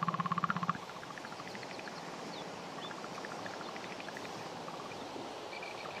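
Electronic bioelectrical sonification from a portable loudspeaker: a rapid buzzing pulse, about a dozen beats a second on two steady pitches, cuts off under a second in. A steady hiss with faint scattered ticks follows.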